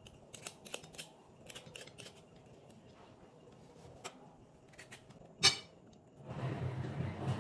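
Faint scrapes and small clicks of a freshly peeled beetroot being handled, with one sharper click about five and a half seconds in. Near the end comes a soft, closer rubbing as the beetroot is held right up to the microphone.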